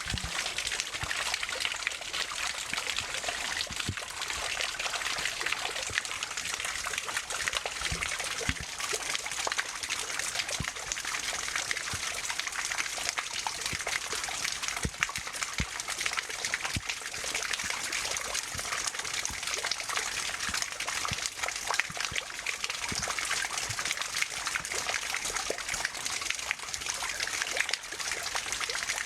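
Pond water trickling steadily, with many small clicks and pops scattered through it.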